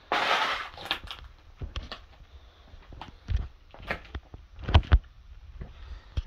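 Irregular footsteps with knocks and crunches of debris underfoot on a littered floor, the heaviest thumps a little past halfway; a short loud noisy rush at the very start.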